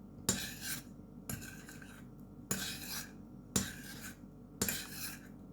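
Spoon stirring hot milk in a saucepan, scraping around the pan's bottom. About five sweeping strokes, roughly one a second, each starting with a light knock.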